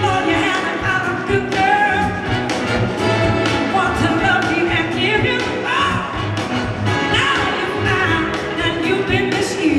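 Live performance by a large soul and blues-rock band, with electric guitars, keyboards, drums and a horn section playing together under singing.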